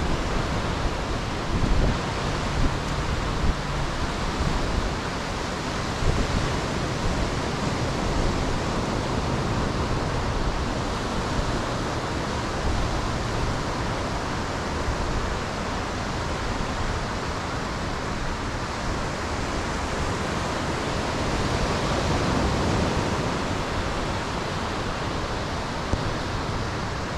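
Ocean surf breaking and washing up a sandy beach, a steady hiss, with wind gusting on the microphone during the first several seconds.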